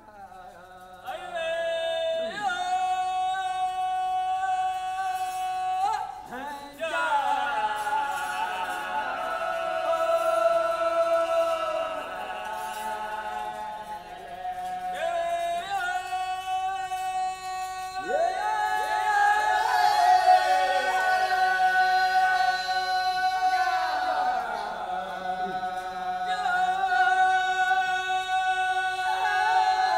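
Wodaabe geerewol song sung a cappella by a group of men: a soloist's call answered by the full chorus, on long held notes that slide down in pitch at their ends, the voices overlapping.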